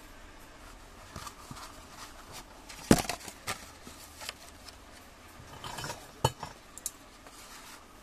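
Scattered sharp metallic clinks and knocks from handling the ceiling fan's metal stator and tools, the loudest about three seconds in and a few more near the end, with some light scraping between.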